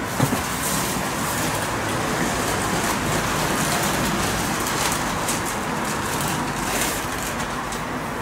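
A steady rushing background noise, like traffic or a ventilation unit, with a single short click just after the start.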